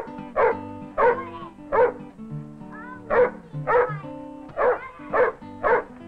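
A dog barking repeatedly, about nine sharp barks in quick runs with short gaps, over background music.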